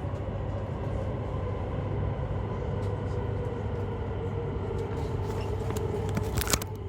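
Inside the carriage of a CRH1A high-speed train running: a steady rumble with a whine that slowly falls in pitch. A brief sharp clatter comes near the end.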